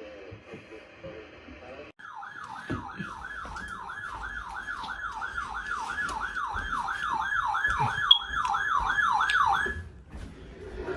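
Siren wailing in a fast up-and-down yelp, about two and a half sweeps a second, starting about two seconds in and growing louder before cutting off sharply near the end.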